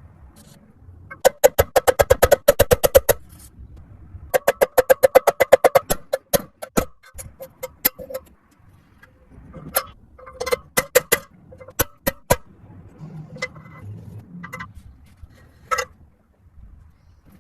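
Metal being struck with a hammer, each blow ringing at the same pitch. Two quick runs of about ten taps a second come first, then scattered single blows.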